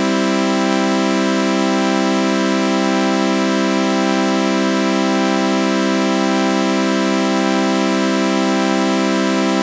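Synthesized chord of sawtooth waves with a flanger effect, held as one steady, unchanging drone.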